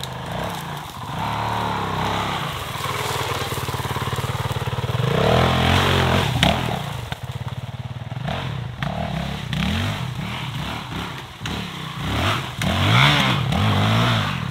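2019 Honda CRF450L's single-cylinder four-stroke engine revving up and down in repeated throttle blips as the dirt bike crawls over rough trail. A sharp knock comes about six and a half seconds in.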